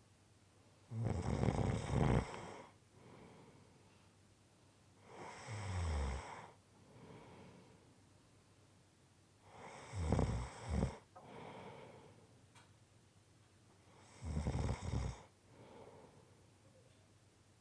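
A person snoring in slow, even cycles: four loud snores, one about every four seconds, each followed by a fainter breath.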